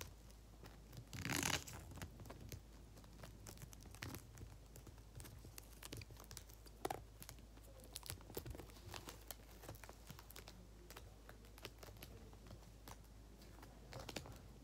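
Sticky tape ripped off the roll once, about a second and a half in, then faint paper rustling and small clicks as the tape is pressed down on a paper squishy.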